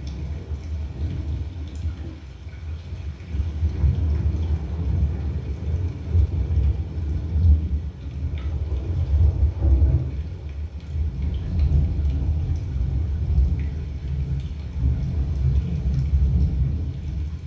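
Deep, rolling thunder rumble with a faint patter of rain, a surround-sound demo soundtrack played through a Logitech Z906 5.1 speaker system with subwoofer. The rumble swells about three to four seconds in and keeps surging and fading.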